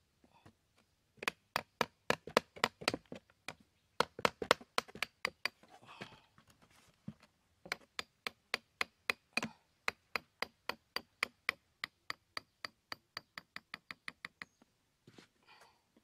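A metal tool head used as a hammer tapping a U-shaped wire staple down into a cardboard floor: sharp metallic taps about four a second, in two runs with a short pause between.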